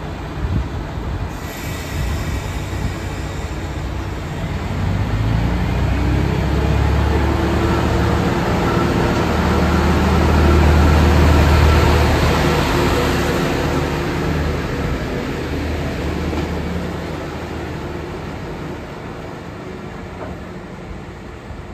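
Kyoto Tango Railway KTR700-series diesel railcar pulling out of the station, its diesel engine running under power. The sound swells as the car passes close, loudest about halfway through, then fades as it moves off down the line.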